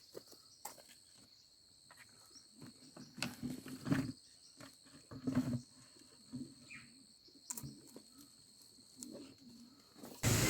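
Faint animal sounds: short low calls several times in the middle and later part, with scattered clicks and knocks over a steady high thin tone.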